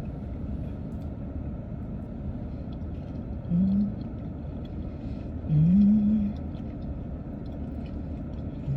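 A woman eating, giving two hummed 'mmm' sounds of enjoyment, a short one about three and a half seconds in and a longer rising one about six seconds in. A steady low rumble from the car runs underneath, with faint clicks of eating.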